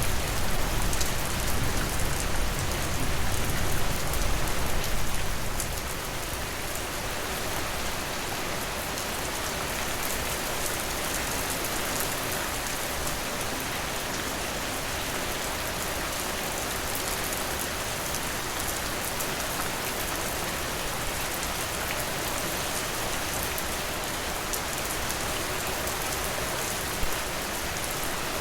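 Steady rain pattering on a surface, with a heavier, deeper rush for the first five or six seconds that then drops to an even, lighter patter. A single sharp drop-like tick near the end.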